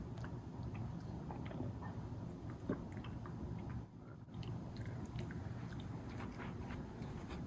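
Two miniature schnauzers play-wrestling: scattered small clicks and scuffles of mouths snapping and mouthing at each other and paws on a rug, with one sharper snap a little before the middle, over a steady low hum.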